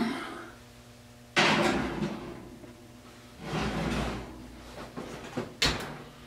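Range oven door pulled open, a heavy cast-iron pot set onto the oven rack with a low rumble, and the door shut with a sharp knock near the end.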